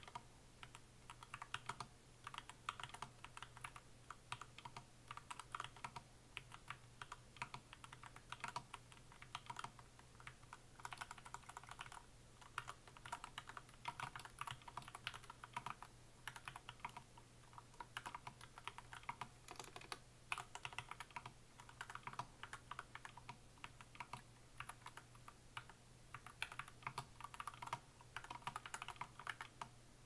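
Continuous fast typing on a backlit computer keyboard: a rapid run of key clicks with a few brief pauses, over a faint steady low hum.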